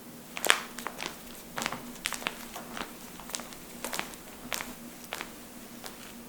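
Joints being cracked by hand: a quick, irregular series of about fifteen sharp pops spread over five seconds, the loudest about half a second in.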